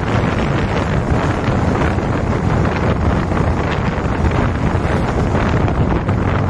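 Heavy wind buffeting the microphone of a motorcycle riding at about 60 km/h, a steady rushing roar strongest in the low end, with the bike's running drowned beneath it.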